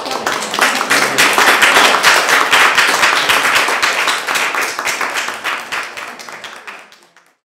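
Audience applauding, swelling over the first couple of seconds and then dying away near the end.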